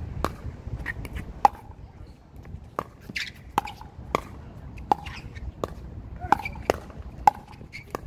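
A pickleball rally: the hollow plastic ball pops sharply off the paddles and the hard court, about a dozen pops in quick succession, roughly one every half second to a second.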